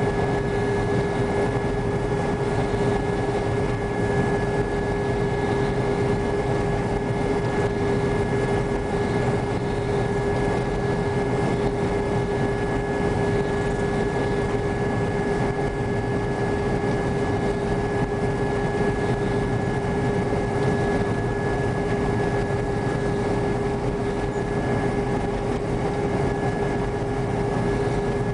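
New Holland TR95 combine running steadily while picking up a wheat swath, heard from inside the cab: a constant engine and threshing-machinery drone with a steady whine over it.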